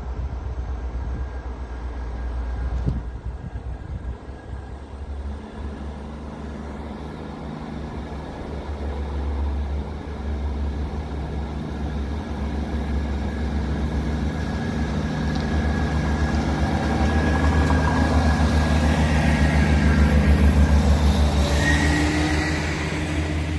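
GWR Class 158 diesel multiple unit approaching and running into the platform. Its underfloor diesel engines drone steadily and grow louder as it nears. Sharper high-pitched tones come in near the end as it draws alongside.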